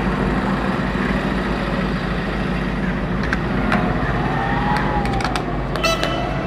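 Steady background road-traffic noise. From about three seconds in come a few sharp clicks and a faint wavering tone, with more clicks near the end.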